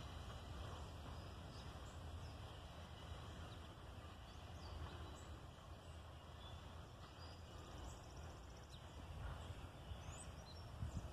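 Quiet outdoor ambience: a faint, steady low rumble with scattered short, high bird chirps.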